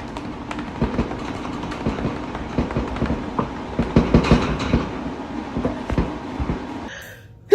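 A moving vehicle's steady rumble with irregular clacks and knocks, cutting off abruptly about seven seconds in.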